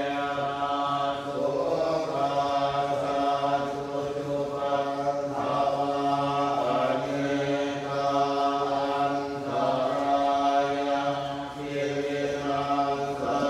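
Thai Buddhist monks chanting in Pali in a low, steady monotone, voices held on one pitch with only slight shifts between phrases.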